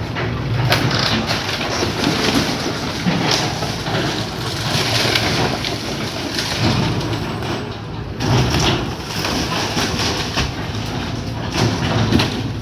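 Excavator engine running with repeated crunching and cracking as a building structure is broken apart.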